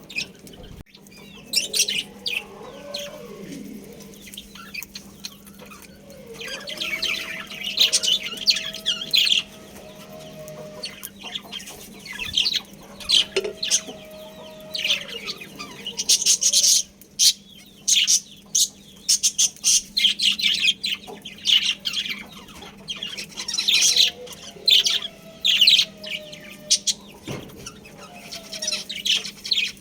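Budgerigars chirping and chattering in quick clusters of short high calls, with a few lower, drawn-out sliding calls underneath.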